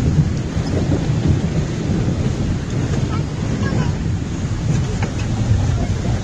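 Off-road vehicle driving through a shallow river, water splashing and churning against its side, with a steady low rumble and wind buffeting the microphone, heard from inside the cabin.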